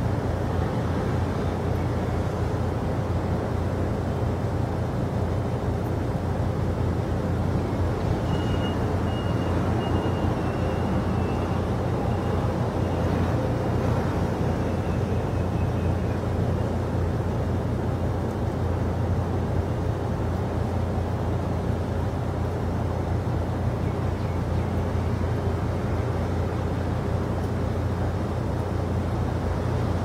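Steady low rumbling background noise. About 8 seconds in, a faint thin high tone comes and goes for a few seconds, then returns weakly a little later.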